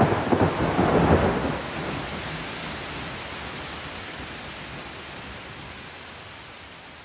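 Rolling thunder rumbles through the first second and a half over steady rain. The rain then slowly fades out.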